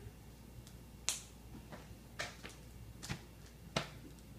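Sharp little clicks and crackles, about one a second, as brittle pieces of frozen chocolate magic shell are picked off a paper sheet and pressed onto a frosted cupcake.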